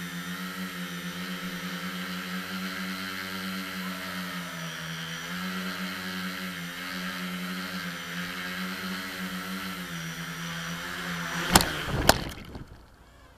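Multicopter's electric motors and propellers whining steadily, heard close up from the craft's onboard camera, the pitch dipping and rising slightly with throttle. Near the end there are two sharp loud knocks as the craft comes down hard on the concrete floor, and the motor whine stops.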